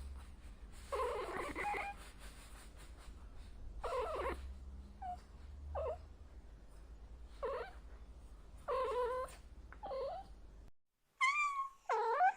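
Domestic cat meowing repeatedly, about seven short meows spaced a second or two apart, over a low steady hum. Near the end the recording cuts to higher, thinner calls.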